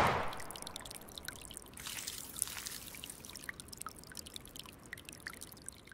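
Logo-sting sound effect: a whoosh at the start, then a quiet water-like trickle with scattered small drips and ticks, fading out near the end.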